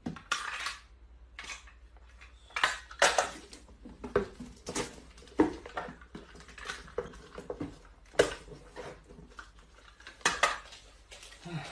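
A string of irregular clattering knocks of hard objects, about fifteen over the stretch, unevenly spaced.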